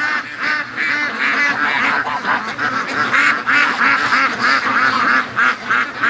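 A flock of domestic ducks quacking continuously, many short overlapping quacks at once.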